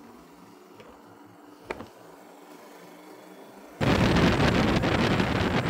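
A quiet stretch with a single faint click. About four seconds in, loud wind rush and motorcycle riding noise start abruptly on the rider's microphone.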